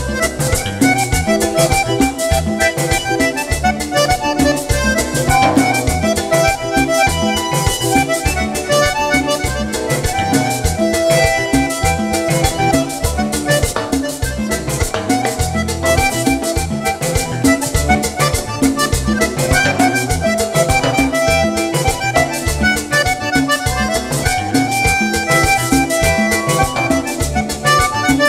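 Button accordion leading an instrumental passage of Panamanian típico dance music, with guitar and drums behind it keeping a steady beat.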